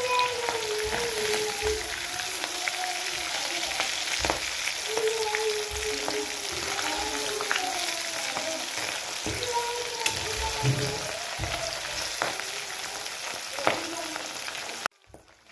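Fish pakoras deep-frying in hot oil: a steady sizzling hiss, with a faint wavering tone coming and going behind it. The sound cuts off suddenly just before the end.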